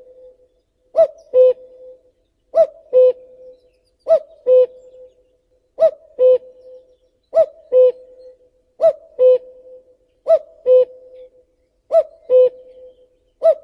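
Male common cuckoo (Cuculus canorus) giving its two-note "cu-coo" call, the first note higher than the second, repeated evenly about every second and a half, some eight times.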